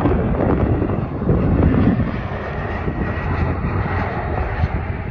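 Embraer 175 twin-engine regional jet on low final approach, its turbofan engines running with a steady rushing rumble and a faint thin whine, easing off gradually as it descends to the runway.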